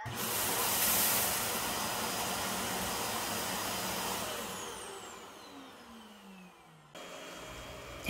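Ecovacs T9 Auto-Empty Station's suction motor running hard, drawing the dust out of the docked robot's dustbin. It starts abruptly, runs steadily for about four seconds, then winds down with a falling whine.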